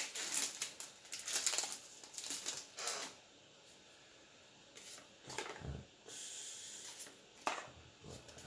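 Magic: The Gathering cards and their packaging being handled: dense rustling and crinkling for about three seconds, then quieter, with a few short rustles and taps.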